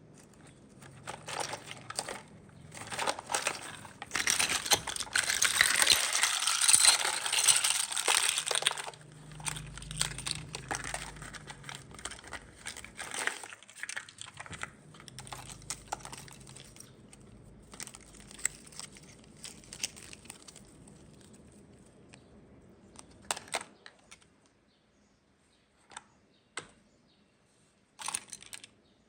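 Plastic toy packaging being crinkled and handled during unboxing, loudest for a few seconds near the start, then softer rustling with a few small plastic clicks near the end.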